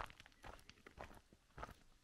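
Footsteps on a stony, gravelly trail: irregular steps about twice a second.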